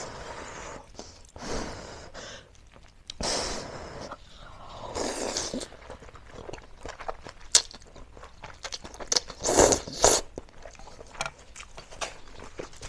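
A woman slurping spicy Korean instant noodles off chopsticks in several drawn-out slurps, with wet chewing clicks between them, close to a clip-on microphone.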